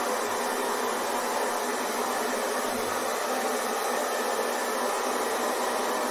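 Hair dryer running steadily: a constant, even whoosh of blown air and motor hum with no change in pitch.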